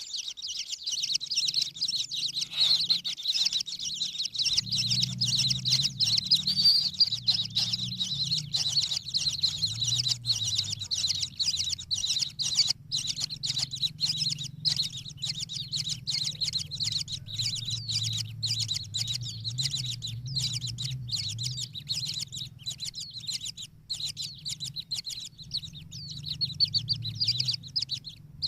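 Kingfishers calling: a dense, continuous, high-pitched chatter of rapid chirps, with a low hum underneath.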